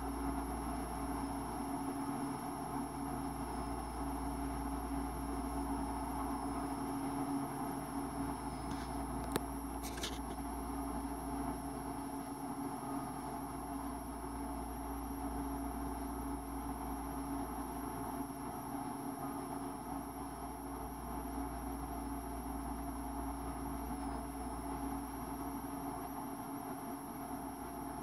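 Steady mechanical hum with a low rumble and a faint high whine, unchanging throughout, with two brief faint clicks about nine and ten seconds in.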